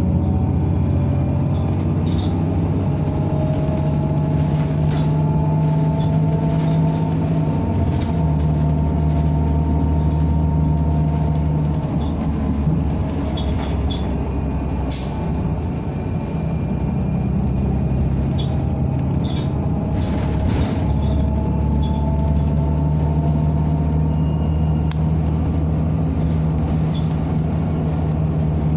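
Inside a moving NABI 45C-LFW city bus: a steady low engine drone with a faint whine that rises and falls as the bus speeds up and slows, shifting pitch a few times as it changes gear. Scattered rattles and clicks come through over it.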